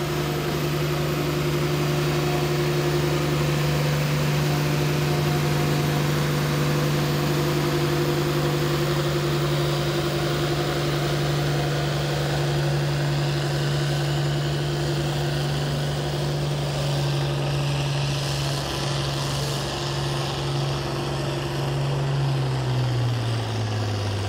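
International Harvester 1566's turbocharged six-cylinder diesel engine running hard under full load, dragging a tractor-pull sled at steady engine speed. The engine speed drops over the last couple of seconds as the pull comes to a stop.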